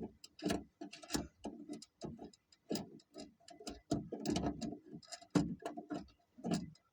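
Ratchet wrench clicking in short, uneven runs as a 10 mm latch bolt is backed out, with a few knocks of metal on metal.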